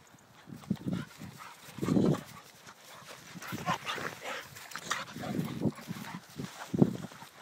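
Two dogs, a young Alapaha blue blood bulldog and a blue Staffordshire bull terrier, play-fighting with short bursts of growling and scuffling. The loudest bursts come about two seconds in and near the end.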